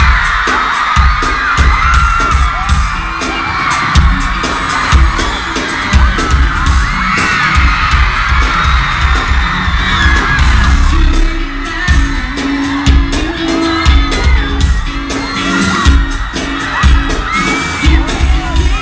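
Live pop concert music, with a heavy, pounding bass beat and voices singing, and a crowd screaming and whooping over it.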